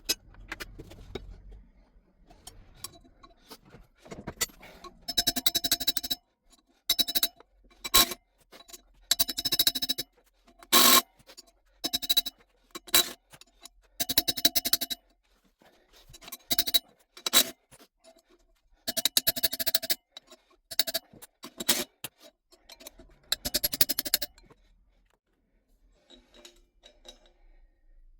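Impact wrench hammering in repeated short bursts, each about a second long with a metallic ringing, working loose the bolts that hold the drive pulley to a Harley-Davidson rear wheel.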